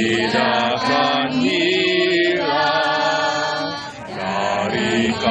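A group of men and women singing together in unison, holding long notes, with a short breath between phrases about four seconds in.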